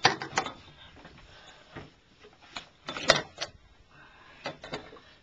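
Scattered sharp knocks and clatters with a quieter shuffle between them, from gear being handled on a small fishing boat while a cod is landed; the loudest knocks come about three seconds in.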